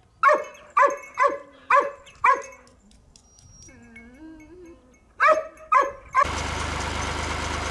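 A dog barking: five quick barks, a fainter wavering cry, then three more barks. About six seconds in, a steady loud rushing noise with a low hum cuts in and carries on.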